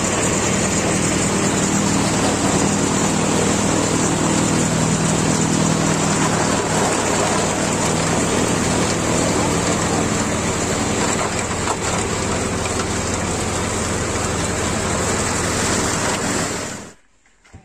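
Forage chopper (chaff cutter) running steadily, a low machine hum under the dense hiss of chopped green maize being blown out of its discharge spout and showering onto the silage pile. The sound cuts off suddenly near the end.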